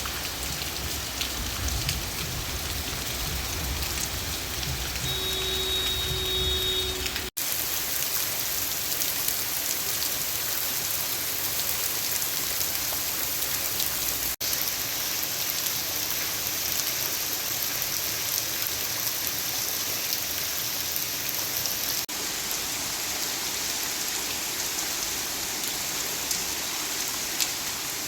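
Heavy rain falling, a steady hiss broken by abrupt edit cuts about 7, 14 and 22 seconds in; the first part carries a low rumble.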